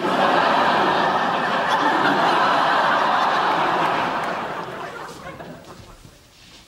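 Sitcom studio audience laughing at a punchline: a burst of laughter from many people that starts at once, holds for about four seconds, then dies away.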